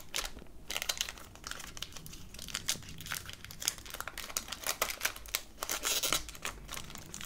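Foil wrapper of a trading-card pack crinkling and tearing as hands peel it open, a dense run of irregular crackles.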